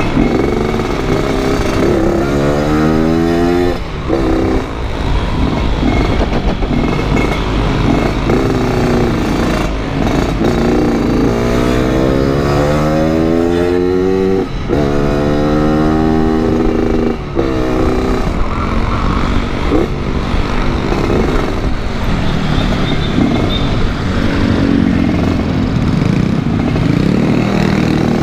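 Yamaha RX-King 135cc two-stroke single-cylinder motorcycle engine accelerating hard several times. Its pitch climbs steeply, then drops sharply at each gear change, and it settles into steadier running near the end.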